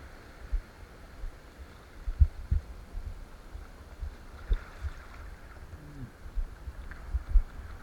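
Muffled, irregular low thumps over a dull rumble, with a faint wash of surf: sea water slapping and sloshing around a camera out in the waves.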